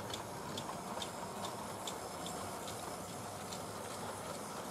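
Model train, a steam locomotive hauling coaches, running on the layout's track: a steady whirr of motor and rolling wheels with regular clicks about twice a second as the wheels cross the rail joints.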